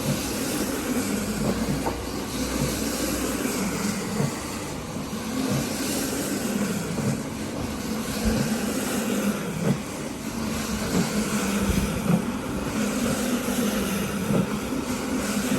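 Steady motor noise of a rug-cleaning machine running, with a wavering hum and a few short knocks.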